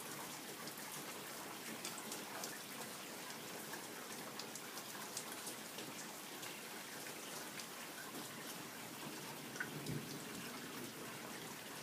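Light, faint rain falling steadily, with scattered drops ticking. Near the end comes a brief, faint low rumble of distant thunder.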